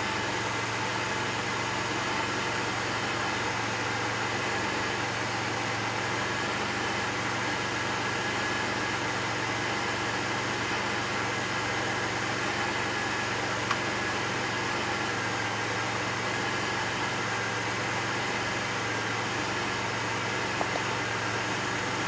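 2002 Pontiac Grand Prix GT's 3800 Series II 3.8-litre V6 idling steadily just under 1000 rpm, heard from inside the cabin, with a low hum over a hiss. Its idle is rough and bogs down about once a second, a fault the owner has not yet traced. Two faint clicks sound, about two-thirds of the way through and again near the end.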